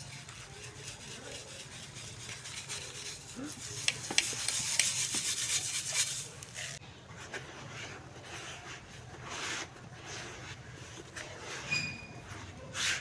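Dry clumps of dirt or charcoal being crumbled: a dry crackling rustle with scattered sharp cracks, loudest from about four to six and a half seconds in.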